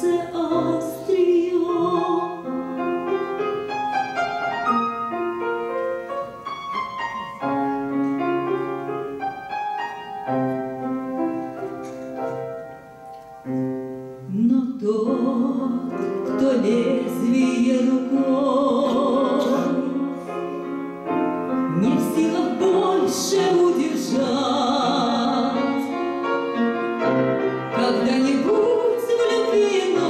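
A woman singing a Russian romance in a classical style, accompanied on grand piano. The piano plays on its own through the first half, and the voice comes in with vibrato about halfway through.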